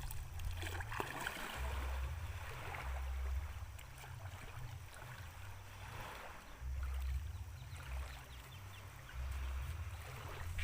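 Wind buffeting the microphone in uneven gusts, with water splashing and lapping underneath.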